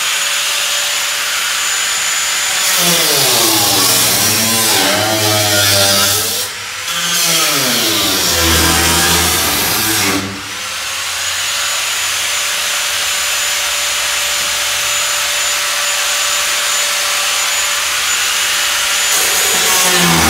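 Angle grinder cutting rusty sheet steel on a 1968 Chevy C-10 cowl. The motor spins up to a steady whine, then its pitch wavers up and down as the wheel bites into the metal under load. It lets off briefly about ten seconds in, spins back up to a steady whine, and bites in again near the end.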